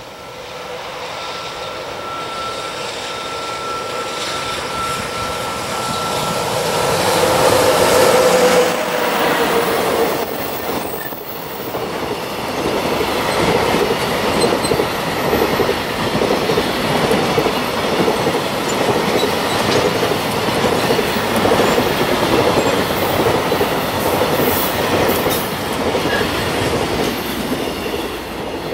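JR Freight EF66 electric locomotive approaching and passing at speed with a steady high whine, loudest about eight seconds in. A long container freight train then rolls by, its wheels clattering over the rail joints, and fades as the last wagon passes at the end.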